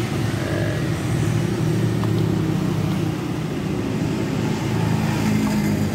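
Passing road traffic: a steady low engine rumble.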